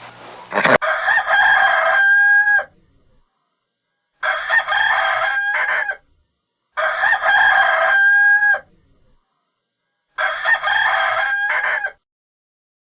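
Rooster crowing four times, each crow about two seconds long and ending in a drawn-out note, with short silences between.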